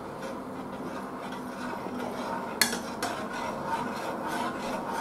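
A long thin metal spoon stirring sugar and water in a saucepan to dissolve the sugar for simple syrup. It scrapes steadily round the pan, with a few light clinks against the metal, the sharpest about two and a half seconds in.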